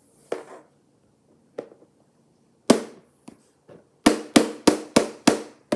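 Plastic toy figure knocked against a tabletop: a few scattered knocks, then a quick run of about five, roughly three a second, near the end.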